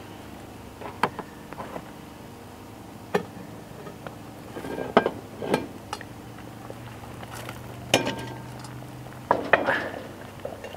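Metal clinks and clanks of a lid lifter hooking and raising the charcoal-covered lid of a cast iron Dutch oven. Half a dozen separate sharp clinks are spread out, and the one about eight seconds in has a short metallic ring.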